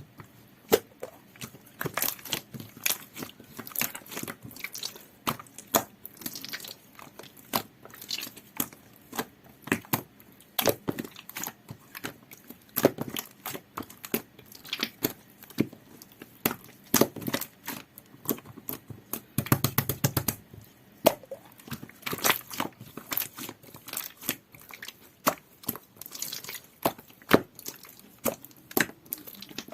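Clear glitter slime with a jelly-like texture being squished and pressed by hand, giving irregular sticky clicks and pops. About twenty seconds in, a quick run of pops comes close together.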